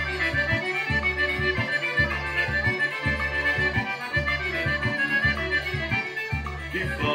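Accordion-led forró music with a steady, repeating low beat.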